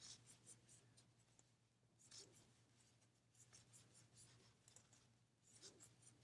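Near silence with faint, irregular soft scratches and ticks of a metal crochet hook drawing green worsted weight yarn through single crochet stitches.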